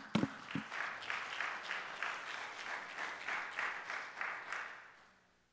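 Congregation applauding, dying away over the last second or so. A few low thumps at the very start from the preacher's microphone being handled as he sets it down.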